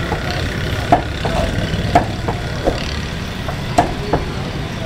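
Meat cleaver chopping chicken on a thick wooden chopping block: about six sharp knocks at an uneven pace, over a steady low background rumble.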